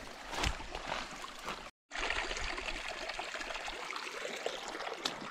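Shallow creek trickling over rocks, with a hiker's footsteps on the rocky creek bed. The sound drops out for a moment just under two seconds in, after which the trickle runs on steadily with one more step near the end.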